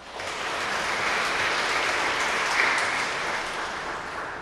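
Audience applauding, starting at once and fading away toward the end.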